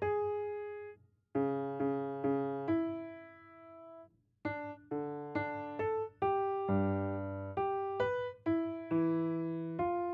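Solo piano playing twelve-tone serial music: single notes and small chords, each left to ring and die away. There are two short breaks, about a second in and about four seconds in, after which the notes come quicker.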